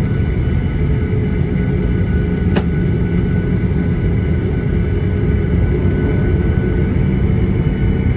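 Airliner's turbofan engines at low taxi thrust, heard inside the cabin: a steady, loud low rumble with a thin, constant whine on top. A single sharp click about two and a half seconds in.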